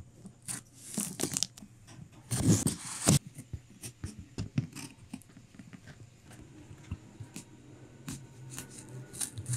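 Pen-style craft knife cutting through plastic packing tape on a cardboard box: scratchy tearing strokes, the loudest about two to three seconds in, with small clicks and scrapes of the blade between.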